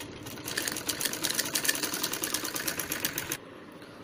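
Hand-cranked Singer sewing machine stitching a hem, a rapid even clicking of needle and feed that stops about three and a half seconds in.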